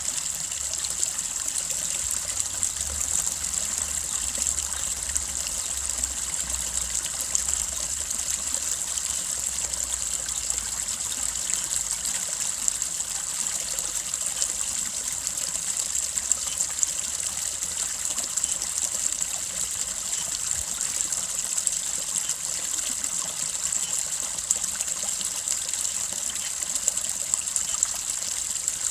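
Small brook babbling, a steady trickle of running water.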